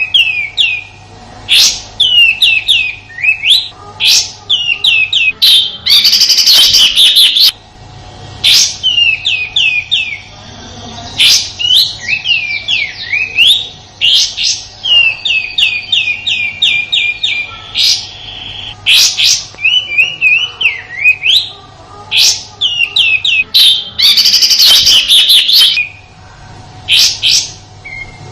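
Kapas tembak bird giving its harsh 'tembakan' song: rapid runs of sharp, downward-sliding notes in bursts. Twice, about six and twenty-four seconds in, it breaks into a longer rasping, buzzy burst.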